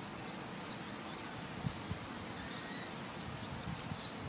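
Many short, high chirps from several wild birds calling at once, over a low rumbling background noise.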